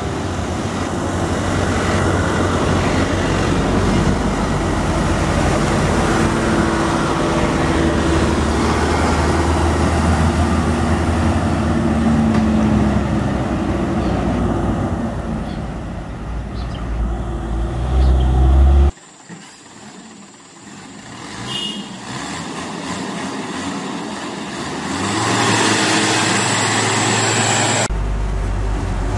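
Diesel engines of loaded Hino trucks labouring slowly uphill, a deep steady rumble whose pitch shifts gradually, mixed with road traffic. About two-thirds of the way in the sound cuts abruptly to quieter passing traffic, then jumps back to a louder engine near the end.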